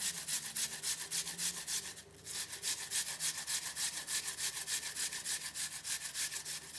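Apple being grated on a small handheld metal grater in quick, even rasping strokes, with a brief pause about two seconds in.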